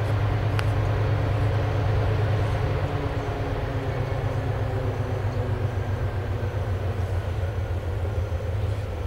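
Diesel-electric freight locomotives' engines running out of sight, a steady low drone with a deep hum.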